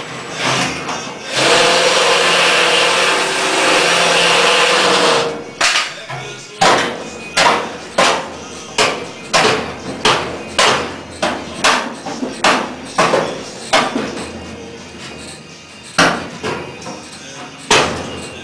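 A cordless drill runs steadily for about four seconds. Then come about a dozen sharp hammer blows on sheet-metal body panel, roughly one and a half a second, and two more spaced blows near the end.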